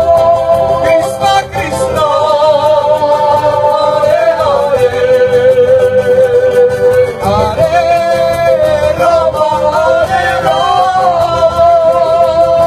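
Live Andean folk band: male voices singing long held notes that slide up and down between pitches, over strummed string instruments and a hand drum.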